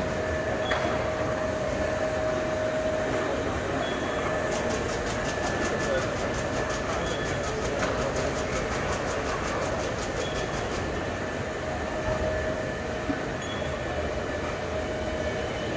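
Packaging machinery running: a steady mechanical din with a faint steady hum. From about four seconds in until about eleven seconds there is a rapid, even run of high ticking, roughly six ticks a second.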